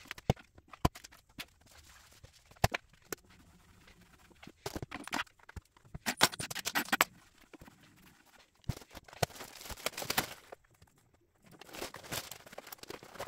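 Household items being picked up and set down on a wooden cube shelf: scattered sharp knocks and clicks, with bursts of rustling around six seconds in, again around nine to ten seconds, and near the end as a cardboard box and its papers are handled.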